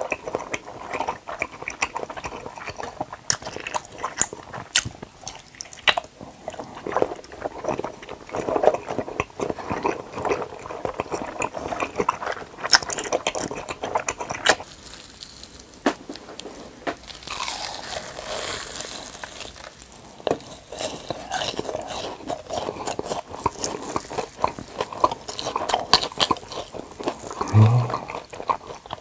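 Close-miked eating sounds: wet, squishy chewing of a large red rubber-glove-shaped jelly, then crunchy bites and chewing of a breaded fried cheese roll cutlet.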